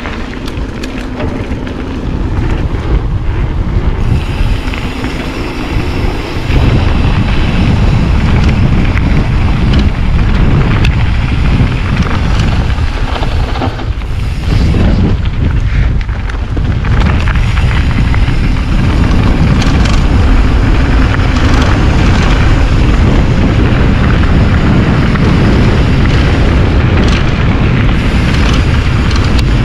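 Wind buffeting a GoPro microphone on a mountain bike riding downhill, a heavy low rumble mixed with the rush of the ride. It gets louder about six seconds in and dips briefly midway.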